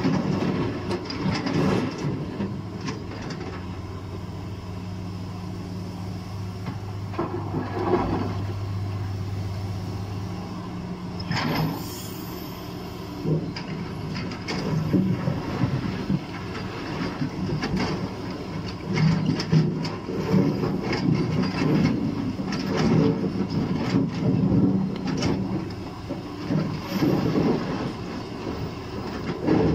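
Liebherr 944 crawler excavator's diesel engine running steadily while its steel bucket digs through a pile of rocks, with stones clattering and knocking against the bucket and each other, the knocks coming thickest in the second half.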